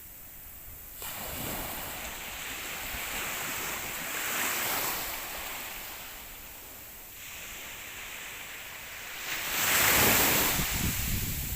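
Sea waves breaking and washing up on shore in a rising and falling rush, the loudest wave coming in near the end, with wind on the microphone.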